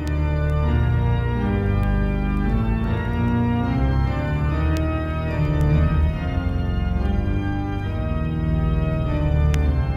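Organ playing slow, sustained chords that shift roughly once a second, with a few faint clicks over it.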